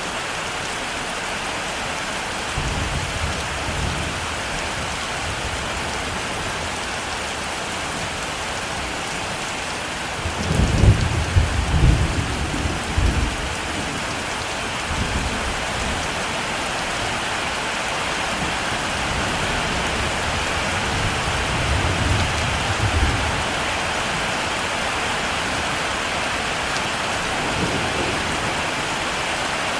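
Heavy rain falling steadily, with low rolls of thunder: a short rumble a few seconds in, the loudest and longest roll about a third of the way through, another in the last third, and a faint one near the end.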